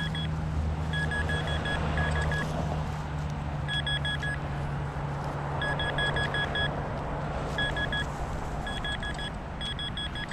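Metal detector giving target tones: short, rapid high-pitched beeps in bursts, over and over, as the coil is swept back and forth over a target reading around 80. A steady low hum runs underneath until near the end.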